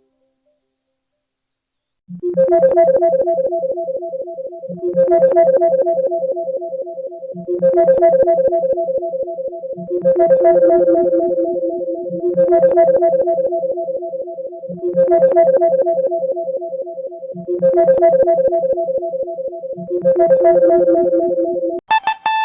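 Pantech Helio Ocean 2 ringtone: after about two seconds of silence, a short synthesized electric-piano chord phrase repeats eight times, about every two and a half seconds. Just before the end it cuts to a different, higher-pitched tune.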